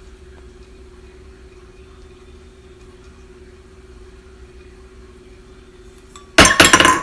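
A faint steady hum, then about six seconds in a tall drinking glass, knocked over by a cat, falls onto a granite countertop: a loud clatter of glass striking stone, several hits in quick succession.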